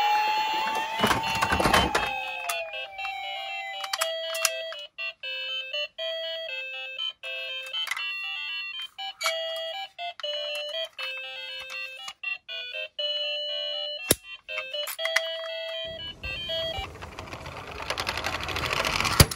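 Toy cars clattering in a cardboard box under a siren-like rising and falling electronic wail, followed by a toy's electronic tune of short beeping notes for about twelve seconds. Near the end a toy police van rolls down a wooden board slope with a rushing rattle and knocks into something at the bottom.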